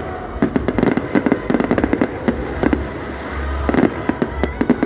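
Fireworks going off: many irregular sharp bangs and crackles, several a second, over a low rolling rumble.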